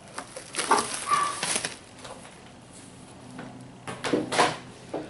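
Cardboard sheet and plastic wrap rustling and crinkling as the cardboard is lifted off a plastic-wrapped mirror panel, in two bursts: one about a second in and a shorter one about four seconds in.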